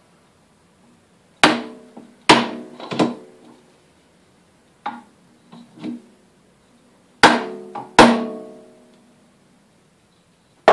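A wooden mallet knocks a drill press chuck upward, about seven sharp blows in two bunches, each with a short metallic ring, driving the chuck's Morse taper arbour home into the quill until it locks.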